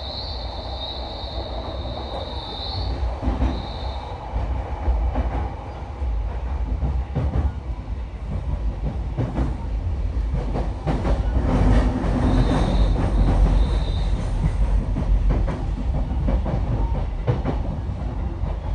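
JR East E233-5000 series electric train heard from inside the car while running: a steady low rumble with the clatter of wheels over rail joints, and a high thin whine that comes and goes. It grows louder about two thirds of the way through.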